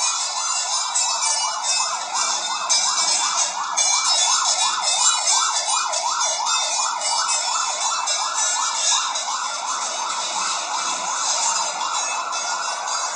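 An emergency-vehicle siren in fast yelp mode, its pitch rising and falling about three times a second. The yelp fades toward the end, and a slower rising wail begins.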